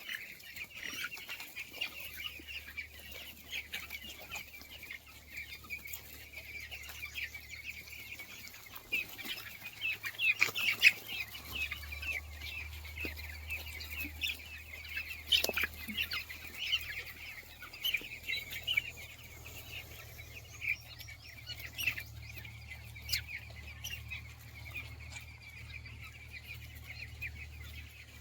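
A flock of young chicks peeping constantly in short, high calls, over a low steady hum that gets louder about halfway through. A few louder knocks come near the middle.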